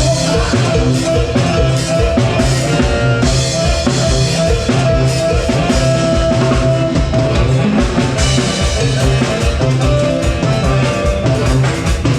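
Rock music with a full drum kit playing a steady beat, bass and sustained pitched notes.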